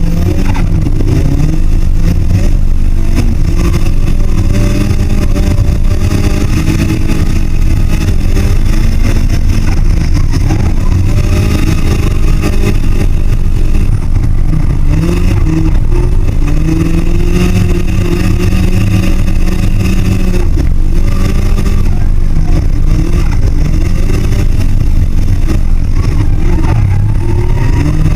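Nissan 240SX drift car's turbocharged SR20DET four-cylinder engine running hard and loud, its revs climbing and dropping again and again as it drifts on dirt.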